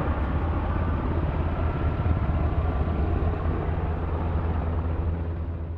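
Boeing 757 twinjet's turbofan engines, a steady loud rumble as the airliner passes low overhead, fading out near the end.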